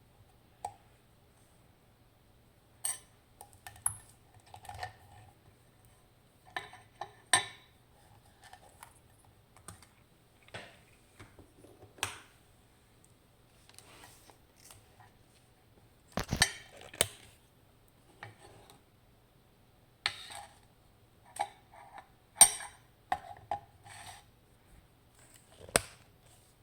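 Irregular small metallic clicks and clatters of lock picks, tension tool and a pin-tumbler lock cylinder being handled and set down, with a few louder knocks about halfway through and again later.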